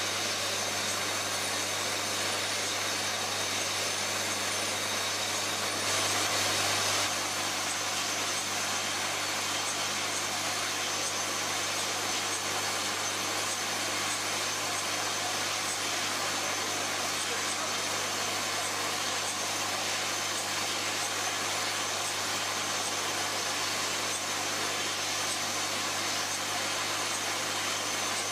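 Rotary bottle unscrambler running steadily: a continuous hum and whir from the drive, with small plastic bottles sliding and lightly knocking against the turning bowl and guides. Briefly a little louder about six seconds in.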